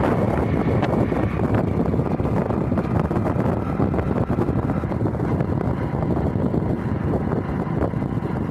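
Steady wind rushing over a phone microphone held out from a moving vehicle, with road and engine noise beneath.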